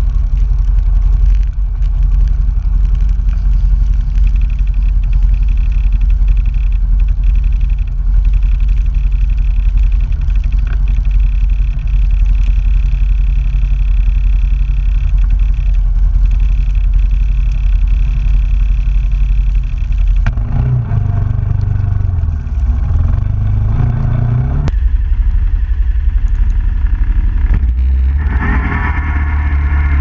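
Suzuki King Quad 750 ATV's single-cylinder engine running at a steady idle, then revving about 20 seconds in and accelerating away near the end, the pitch rising.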